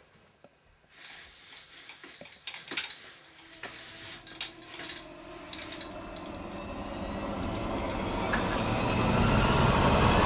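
A run of light clicks and clinking knocks, then a rushing noise that swells steadily louder toward the end.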